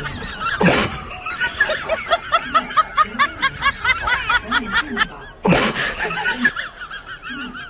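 Someone laughing hard in a long run of quick high-pitched 'ha-ha' pulses, about three a second. Two loud sudden bangs cut in, about a second in and again past the middle.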